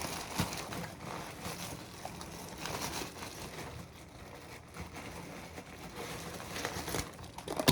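Rustling and crinkling of food packaging while a ketchup packet is dug out, with many small crackles and rustles.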